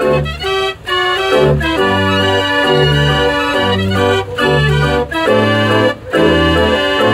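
48-key Limonaire Dutch street organ playing a tune: held pipe notes over a bass line of alternating low notes, with a few brief breaks between phrases.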